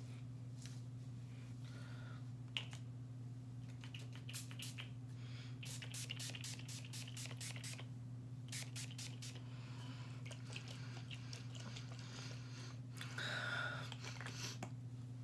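Makeup setting spray misted onto the face from a pump bottle: quick runs of spritzes, several a second, each a short hiss, with a steady low hum underneath.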